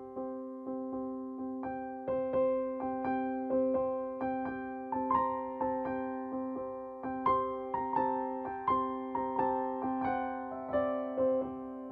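Background music: a gentle keyboard melody of notes that strike and fade, about two a second, over held low notes.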